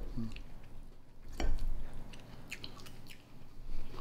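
Quiet chewing and small clicks of forks against plates, with one louder knock about a second and a half in.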